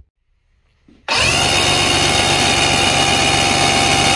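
Mercury outboard engine turning over on its electric starter, with a steady whirring that starts about a second in and rises slightly in pitch as it begins. It is being cranked so that a timing light can read the max ignition timing.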